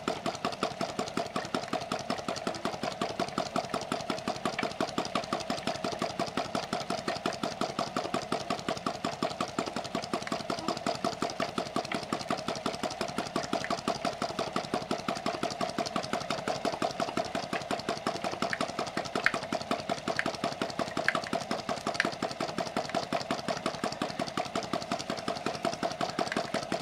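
Small self-built flame-eater (hot-air) engine running steadily, with a fast, even beat of strokes. A few sharper clicks stand out about two-thirds of the way through.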